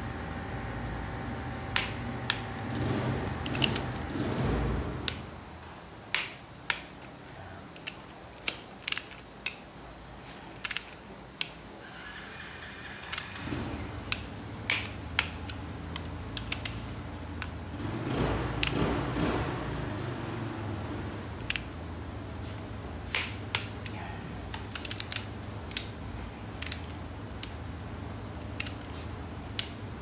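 Hand tools and metal parts working on a Sea-Doo Spark engine during its rebuild: scattered sharp metal clicks and clinks, with two longer stretches of rapid rattling, over a steady low hum.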